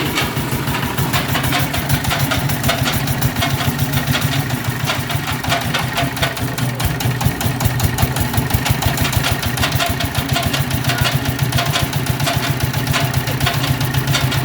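Lightweight concrete (hebel) block crusher machine running: a steady low drone with fast, dense rattling knocks throughout.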